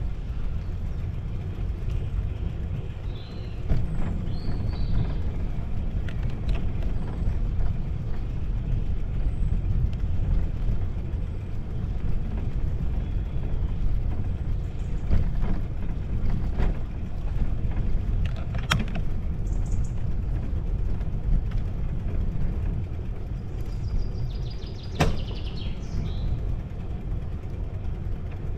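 Steady low rumble of a bicycle ride, wind and tyre noise, with a few short high chirps and a couple of sharp clicks.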